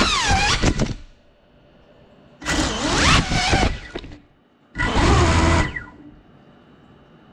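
Geprc Cinelog35 cinewhoop's motors whining, then falling in pitch and cutting out about a second in as the quad crashes. Twice more, about two and a half and five seconds in, the downed quad's motors spin up in short bursts of whine that rise and fall in pitch.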